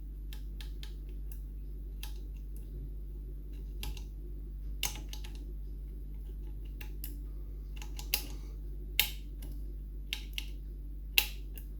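Irregular small metallic clicks and ticks of a lever-lock pick and tension tool working inside a Yale five-lever mortice lock, probing for the binding lever, with a few sharper clicks near the end. A low steady hum lies underneath.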